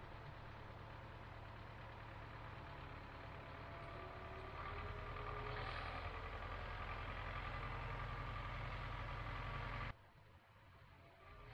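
Tractor engine running while driving a SWAN AGRO RT200 rotary tiller, a steady drone that grows louder about halfway through. Near the end it drops suddenly to a fainter, more distant engine sound.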